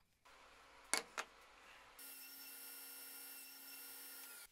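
Faint workshop sounds: two sharp knocks of wood on a bench about a second in, then a table saw running steadily, a constant whir with several fixed tones through the second half.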